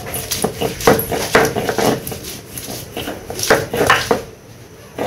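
A knife chopping garlic cloves on a board: quick, uneven knocks of the blade, several a second, that die down near the end.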